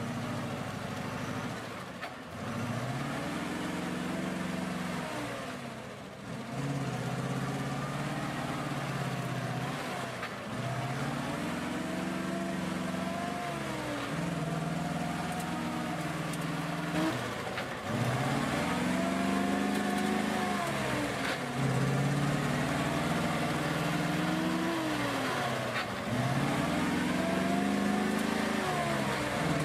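A vehicle engine revving up and dropping back again and again, a cycle every three to four seconds, louder in the second half.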